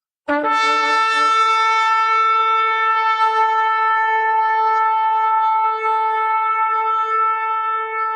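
A shofar blown in one long held blast: it starts about a third of a second in with a brief lower note, then settles on a steady, bright pitch.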